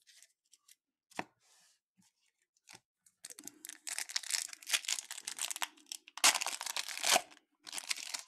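Foil wrapper of a Topps baseball card pack being torn open and crinkled by hand. A few light handling clicks come first; from about three seconds in there is dense tearing and crinkling, loudest near the end.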